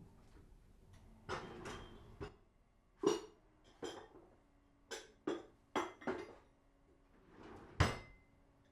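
Dishes and utensils being handled: a string of separate clinks and knocks, some leaving a brief ringing tone, with the loudest clink near the end.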